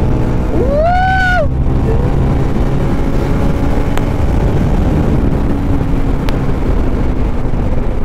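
Bajaj Pulsar NS200 single-cylinder motorcycle cruising at road speed, its engine running steadily under heavy wind rush on the microphone. About a second in, a short high tone rises and falls once.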